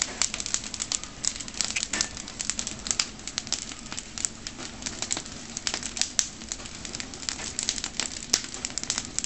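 Wood fire crackling in the firebox of a brick sugarcane-juice furnace (hornilla), stoked hot: many irregular sharp cracks and pops over a steady background rush.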